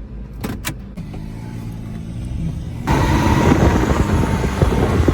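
Diesel pickup truck engine idling with a steady low rumble. About three seconds in, a sudden, much louder rush of engine and wind noise takes over.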